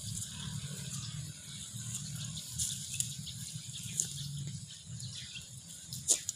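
Outdoor farmyard ambience: a steady high-pitched insect drone over a low rumble, broken by a few short sharp clicks, the loudest about six seconds in.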